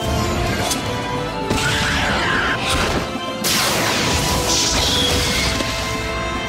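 Dramatic film score with crashing fight sound effects laid over it: one about a second and a half in and a longer, louder one at about three and a half seconds.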